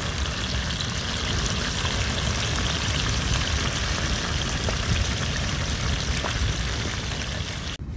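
Drumsticks and potatoes frying in fat in a wide steel pan over a wood fire: steady sizzling, with a few faint crackles. It cuts off suddenly near the end.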